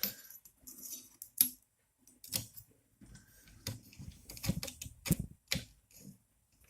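Irregular clicks, taps and light rattles of small metal screws and hand tools being handled while screwing together the parts of a 3D printer's extruder assembly.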